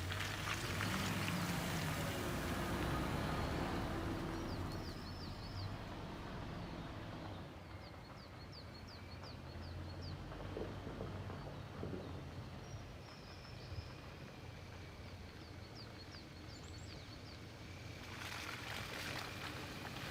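Low steady hum of an off-road vehicle's engine. Short runs of rapid high chirps from a small animal come four or five times over it. A wider rush of noise fills the first few seconds and comes back near the end.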